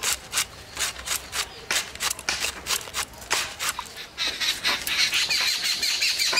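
Cabbage being sliced on an upright blade, with crisp cutting strokes at about four a second. From about four seconds in, a bird calls repeatedly over it with a steady high note and short chirps.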